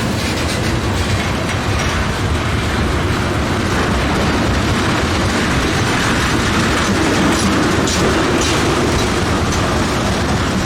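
Freight train of ethanol tank cars rolling past: a steady, loud noise of steel wheels on the rails, with no horn.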